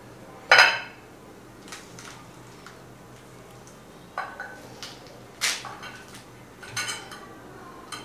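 Kitchen knife and pomegranate halves knocking against a ceramic plate while the fruit is cut open: a handful of sharp clinks with a short ring. The loudest comes about half a second in, and a cluster follows from about four to seven seconds in.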